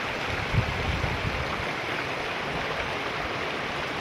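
River water flowing steadily over rocks, an even rushing hiss, with a brief low thump about half a second in.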